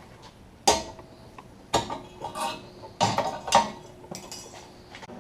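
Metal parts clanking and clinking as they are handled and knocked together, about six sharp knocks at uneven intervals.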